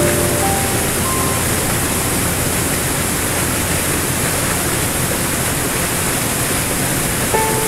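Small waterfall pouring onto rocks and into a pool: a steady rushing and splashing of water. A few soft held piano notes die away in the first second, and another comes in near the end.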